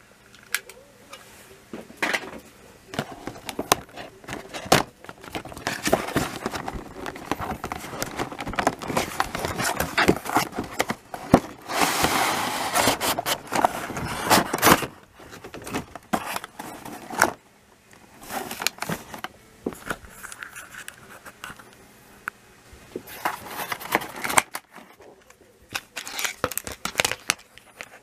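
Hands unboxing a Plarail toy-train rail kit: a cardboard box being opened and packaging crinkling and rustling, loudest through the middle, with scattered clicks and clacks of hard plastic rail pieces.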